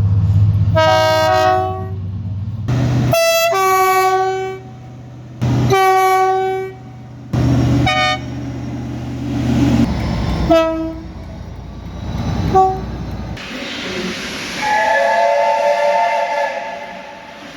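Train horns sounding a series of blasts, some short toots and some held for a second or more, over a low rumble. Near the end a horn of a different pitch sounds for a couple of seconds.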